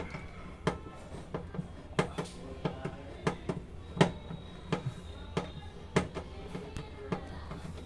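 Irregular metallic clicks and knocks, roughly one or two a second, some ringing briefly: a socket tool and metal parts being worked on a top-load washing machine's gearbox mechanism during its removal.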